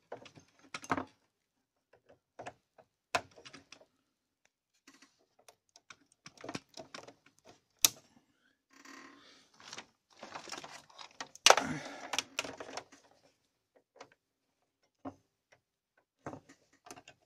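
Irregular clicks and knocks of a PlayStation 3 console's plastic casing and parts being handled, with a stretch of scraping and rustling about 9 to 13 seconds in and two sharp knocks, near 8 and 11.5 seconds.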